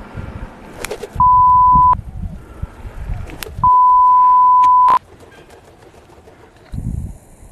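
Two loud, steady, single-pitch beeps that start and stop abruptly, the first under a second long and the second about a second and a half, of the kind edited in to bleep out swearing. Low wind rumble on the microphone between them.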